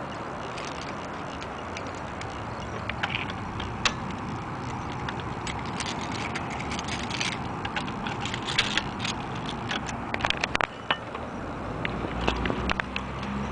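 Steady outdoor background noise with a run of short sharp clicks and light rattles through the middle.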